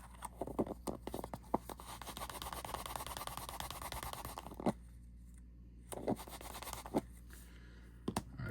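Close-up handling of a small watch case and its rubber O-ring: scattered light clicks and taps, with a stretch of rapid fine scratching through the first half.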